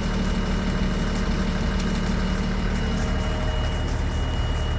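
LMTV military truck's diesel engine idling steadily, with a thin steady high tone running alongside it.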